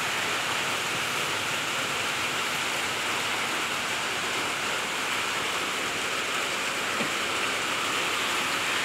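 Steady rain falling on corrugated roof sheets, an even, unbroken hiss.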